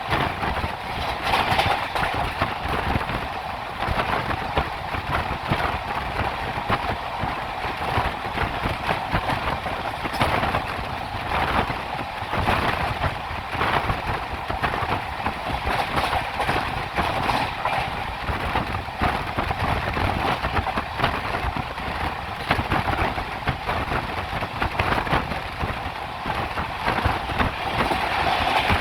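Poorva Express train's wheels running on the rails at speed: a steady rolling rumble with frequent sharp clacks as the wheels pass over rail joints.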